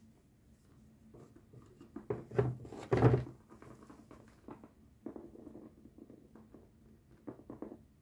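Scattered soft knocks and scrapes, a cluster about two to three seconds in and a few more later, as cockatiels shuffle and step about on a plastic container lid.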